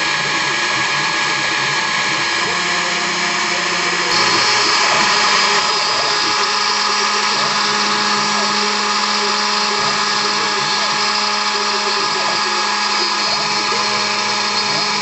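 Hobby CNC mill's spindle running steadily while milling a guitar pickup part, with faint whines that shift in pitch as the machine moves. The cutting noise gets harsher and louder for a second or so about four seconds in.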